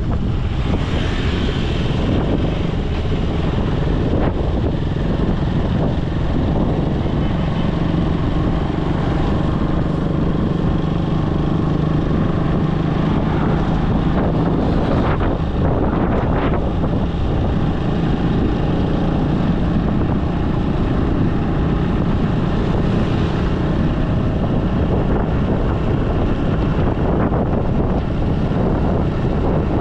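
Wind buffeting the microphone over a running vehicle engine, a steady loud rush with a low hum, as from riding along in the open.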